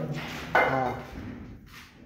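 Fired clay bricks knocking against each other as they are dry-stacked by hand, with one sharp clack about half a second in.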